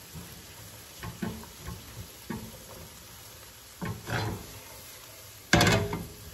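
Sliced onions and mushrooms frying in a skillet, being turned with silicone-tipped tongs: a light sizzle with a few soft stirring scrapes, and a louder clatter near the end.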